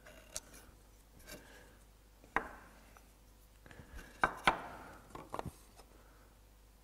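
Light knocks and taps of a try square's metal blade being set down and shifted against a pine stile and the bench top, some ringing briefly. The two sharpest knocks come about two and a half and four and a half seconds in.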